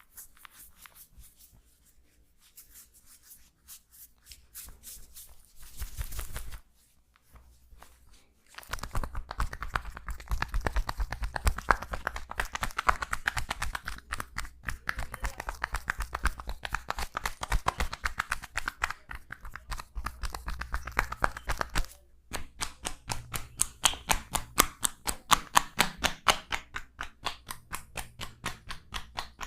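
Hands working a body in a massage: a few soft rubbing sounds at first, then from about nine seconds a fast run of tapping and chopping strokes, several a second. The strokes stop briefly about two-thirds through and pick up again with a steady beat of about three to four a second.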